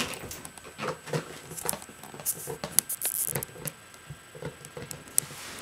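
Puppy moving about on carpet with a plastic frisbee in his mouth: scattered light clicks and soft taps, a few of them sharper.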